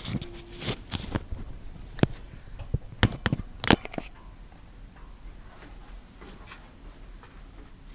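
A handful of sharp clicks and taps over the first few seconds, then only faint room hiss.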